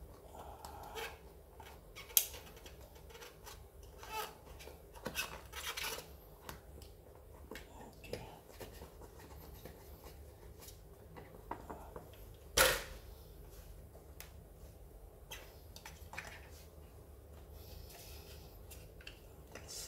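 Hands working a Xiaomi M365 scooter's rubber tyre back onto its wheel rim: scattered rubbing and small clicks, with two sharp knocks, about two seconds in and about twelve and a half seconds in.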